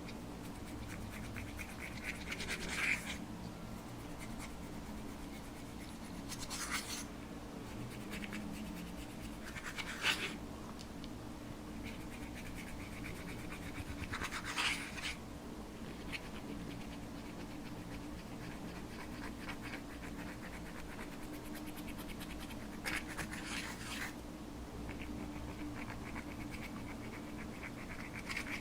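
Slime being kneaded and pressed by hand, giving short crackling, squishing bursts every few seconds over a steady low background hum.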